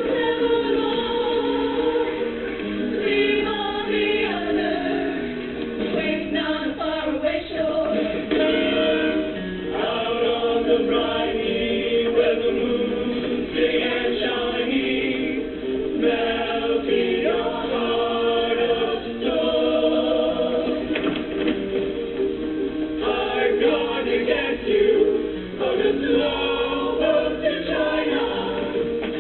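A choir singing in harmony, many voices holding and moving through sustained chords.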